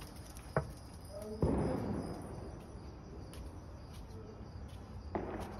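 Crickets chirping steadily in the background, with a sharp click just over half a second in and a brief scuffing rustle about a second and a half in.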